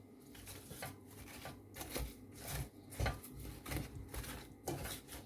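Kitchen utensils and a cooking pot clicking and knocking irregularly, a few light strikes a second, one louder knock about three seconds in.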